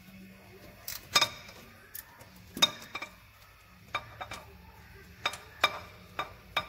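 Ratchet wrench with a 10 mm socket undoing a bolt at a car's front wheel hub: irregular sharp metallic clicks and clinks, about eight in all, as the ratchet is worked and knocks against the metal.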